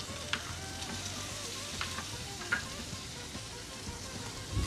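Shrimp sautéing in hot oil in a nonstick frying pan: a steady sizzle with a few sharp crackles.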